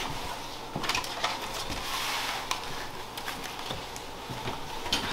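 Soft cloth rustling with a few scattered light knocks and taps: a person in a long robe moving about and handling a plastic mask.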